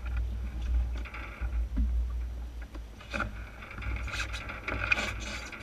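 Water splashing and rushing against the hull of an Enterprise sailing dinghy under way, with wind rumbling on the microphone. The splashing grows louder about halfway through, with a few sharp clicks near the end.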